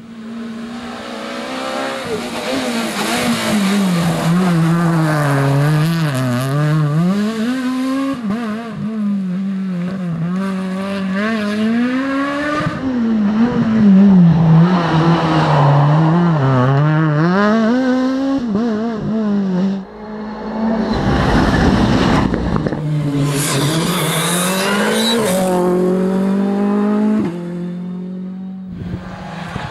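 Rally car engines at full throttle, the note repeatedly climbing and dropping with gear changes and lifts. About two-thirds through, the sound breaks off abruptly, a loud rush of noise follows, and an engine is heard again after it.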